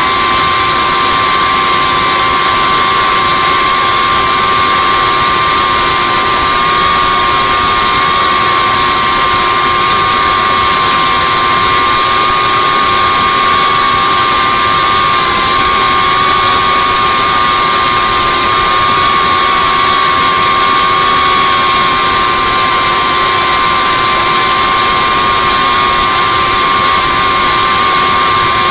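FPV drone's brushless motors and propellers whining steadily in flight, heard through the onboard camera's microphone. The pitch holds nearly level with only slight wobbles as the throttle changes.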